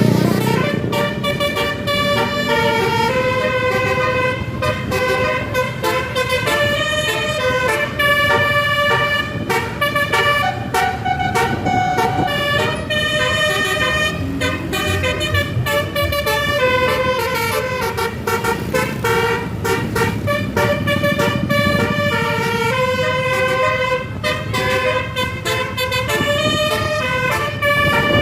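Bus telolet horn of the Baduri type playing a long melody, its several notes stepping up and down like a tune, over a low engine and road rumble.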